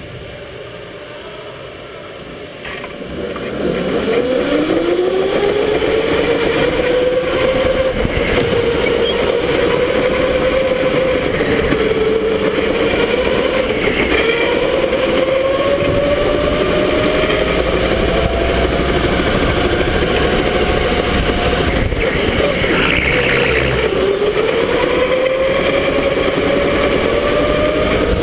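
Electric go-kart motor whining as the kart pulls away about three seconds in. The pitch rises steeply, then rises and falls with speed through the corners, dipping briefly near the end before climbing again, over a steady rushing noise.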